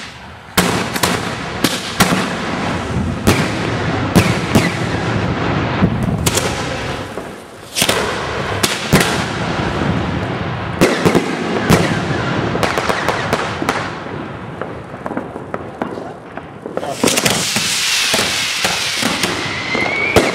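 Fireworks and firecrackers going off in quick succession: many sharp bangs and crackling. About three-quarters in comes a loud hiss with a whistle that rises near the end.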